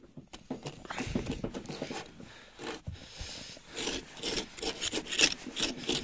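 Rope wrapped around a snow-caked car tyre for grip being worked off by hand. It makes a run of irregular rasping, scraping strokes against the packed snow and rubber.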